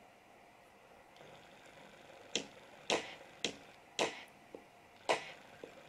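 Sharp percussive clicks on a steady beat, about two a second, after a faint hiss: the start of a music track played through Woxter Microbeat 21 portable speakers.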